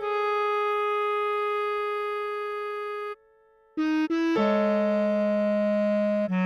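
Slow computer-played melody in a bass clarinet sound with a keyboard accompaniment. One long held note stops about three seconds in, followed by a short rest, two quick notes, and another long held note with a lower note sounding beneath it.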